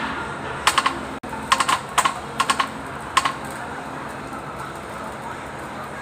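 Several short runs of quick, sharp clicks in the first half, over a steady low hum.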